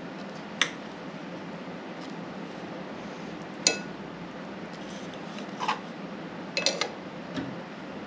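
Metal knife and fork clinking and scraping against a dinner plate while food is cut. There are a handful of sharp clinks: the loudest comes about halfway through with a brief ring, and a quick cluster comes near the end. A steady low hum runs underneath.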